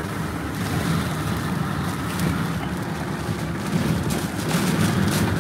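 Wind-driven heavy rain on the windshield and body of a moving vehicle, with road and engine rumble, heard from inside the cabin as a steady, loud wash of noise.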